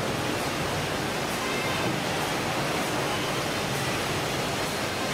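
Steady, even noise of fish-processing machinery and running water on a ship's factory deck, with a faint high tick repeating about once a second.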